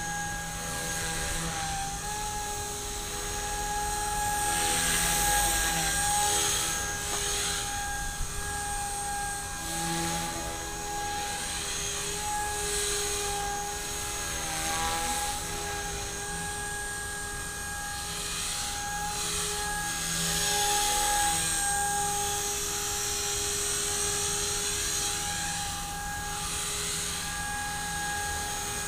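Blade 180 CFX micro RC helicopter in flight, with Lynx main and tail blades: a steady high-pitched whine from its brushless motors over rotor buzz. The pitch shifts a little and the rotor noise swells and fades every few seconds as it manoeuvres.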